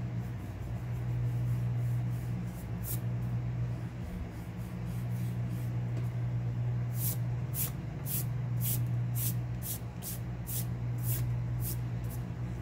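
Quick rhythmic rubbing strokes on drawing paper, about two a second, clearest in the second half, over a steady low hum that is louder than the strokes.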